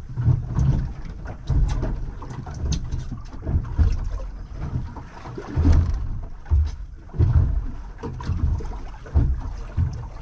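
Clicks and knocks of fishing tackle being handled as a lead weight is swapped on the rig, over irregular low thumps, in a small boat at anchor.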